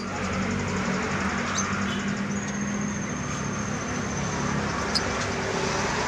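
Steady outdoor traffic noise with the low hum of a running engine, and a thin, steady high-pitched tone that comes in about two seconds in.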